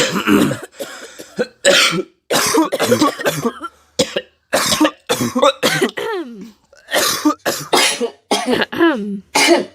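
A person coughing in a long fit: short, abrupt coughs one after another, roughly two a second, some ending in a short voiced tail.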